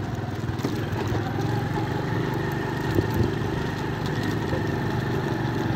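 Vehicle engine running steadily at low speed, an even low drone heard from on board the moving vehicle.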